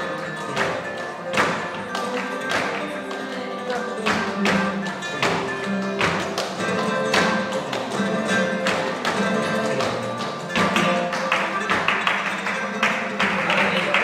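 Flamenco guitar playing alegrías, with a regular run of sharp percussive strikes over it that grows denser and brighter in the last few seconds.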